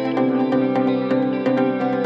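Background music: steady held tones over a quick, even pulse of short notes.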